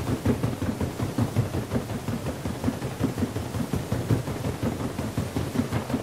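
Paddle steamer's paddle wheels thrashing the water: a steady, heavy churning made of rapid, uneven slaps and splashes.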